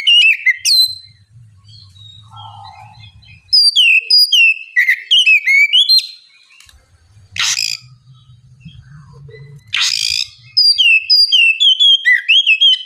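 Oriental magpie-robin singing: phrases of quick, slurred whistled notes, mostly falling in pitch, broken twice by a short harsh rasping note.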